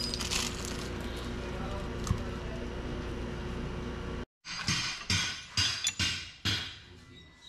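Steady low hum, then a series of about six sharp metallic knocks in quick succession, fading toward the end, as metal parts are struck and set on a rear axle shaft during a bearing replacement.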